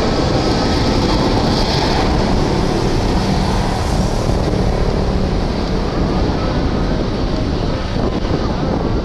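Jet engines of a Boeing 737 airliner running loudly as it rolls along the runway, with a high engine whine that drops away about two seconds in.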